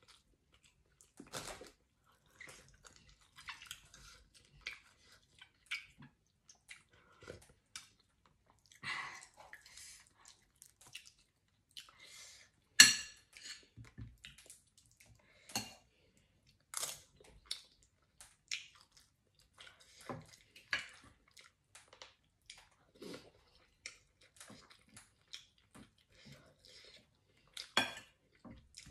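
A metal spoon clinking and scraping against a metal pan of soup in scattered, irregular strokes, with chewing between them. One sharp clink a little under halfway through is the loudest.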